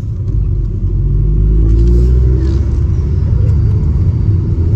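Stage 3-modified Vauxhall Astra VXR's turbocharged four-cylinder engine under acceleration, revs climbing, heard from inside the cabin.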